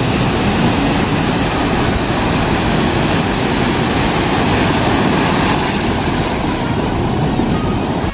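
Ocean surf on the beach: a steady, even rush of waves, cutting off suddenly near the end.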